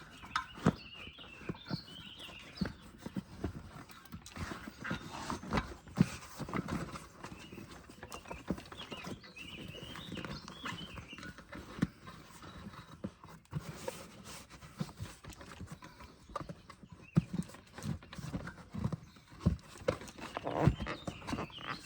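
A bicycle tire being worked onto its wheel rim by hand: irregular knocks and clicks of the tire and rim, with a few short rubber squeaks.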